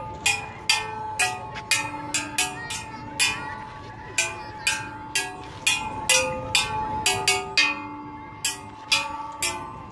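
Background music: an upbeat tune of bell-like struck notes at about two a second, each ringing at its own pitch, over a steady held tone.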